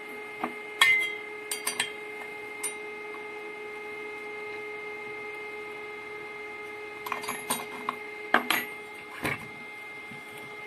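Steel parts of a homemade chain-sharpener pivot arm being handled on a wooden table: scattered metal clinks and knocks, the loudest about a second in and another cluster a little after seven seconds, over a steady high hum.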